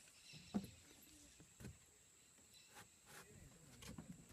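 Near silence: faint outdoor ambience with a steady thin high tone and a handful of brief soft knocks and rustles, the sharpest about half a second in.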